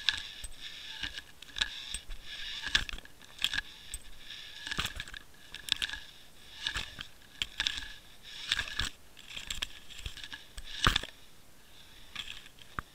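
Water Wolf underwater camera knocking and scraping against kelp and its line as it swings through a kelp bed. It gives irregular sharp clicks and knocks, roughly one a second, over a steady hiss.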